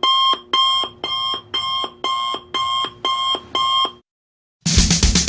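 Electronic alarm-clock-style beeping, a pitched beep repeating about twice a second, eight times, stopping about four seconds in. Music with drums starts just before the end.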